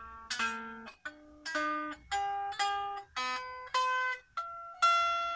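Epiphone Les Paul Special electric guitar played without an amp, single notes picked one after another, about a dozen of them climbing in pitch, the last one left ringing. The guitar is being test-played after a Graph Tech TUSQ nut has been fitted.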